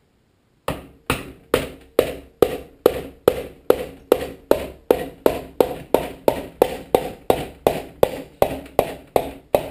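Wooden handle of a ball peen hammer tapping a piston down through a ring compressor into the cylinder bore of a Tecumseh HSK70 engine. About twenty light taps, a little over two a second, each with a short metallic ring.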